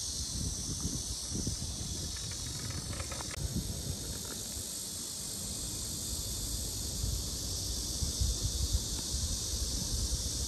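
Steady high-pitched insect chorus, with wind buffeting the microphone in an uneven low rumble.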